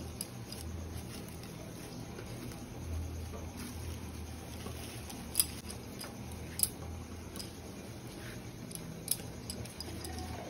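Plastic cling wrap crinkling and rustling as hands twist and press a ball of cooked cassava fufu inside it, with a couple of sharp clicks. A low steady hum runs underneath.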